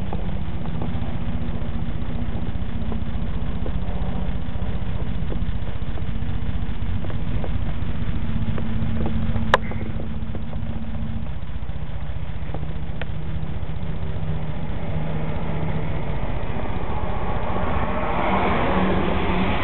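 An engine or motor running steadily at idle, a low even hum, with one sharp click about ten seconds in and a rougher noise swelling up near the end.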